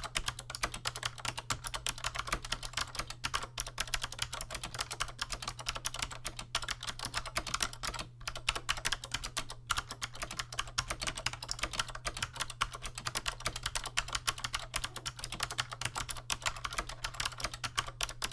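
Fast continuous typing on a 1993 Chicony KB-5581 keyboard with clicky SMK second-generation 'Monterey' switches and PBT keycaps, a dense run of sharp key clicks broken by a few short pauses. A steady low hum lies under it.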